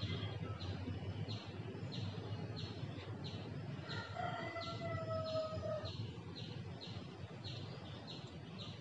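Rhythmic high-pitched chirping, repeating evenly about two to three times a second. A held tone with overtones sounds for about two seconds near the middle, falling slightly in pitch.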